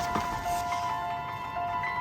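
Background music: a slow melody of held, bell-like chiming notes, with a couple of soft clicks near the start.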